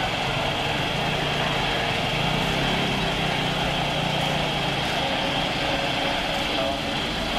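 Steady jet engine noise across an airfield, a constant rush with a low hum under it, as a light business jet comes in to land.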